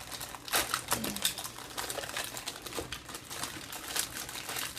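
Irregular crinkling and clicking of a sprinkles container being fumbled and picked at as someone struggles to get it open.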